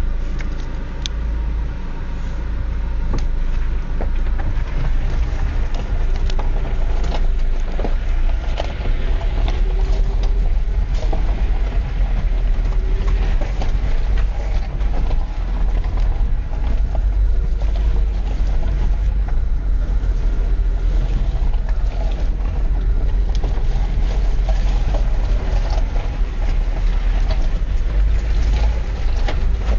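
Car driving on a gravel road, heard from inside the cabin: a steady low rumble of engine and tyres with scattered clicks and knocks throughout.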